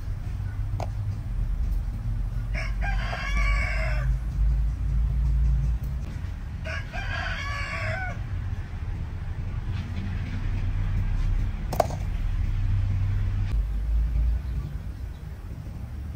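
A rooster crowing twice, each crow about a second and a half long, over a steady low rumble, with a single sharp click near the end.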